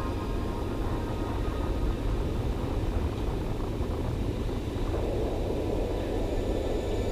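Steady low rumbling room noise with no distinct events. Faint background music fades out early and comes back near the end.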